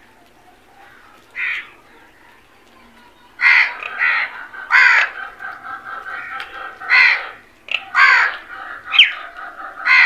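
House crows cawing. There is one short caw early, then from about a third of the way in a series of loud, harsh caws roughly a second apart, with softer overlapping calls from the flock between them.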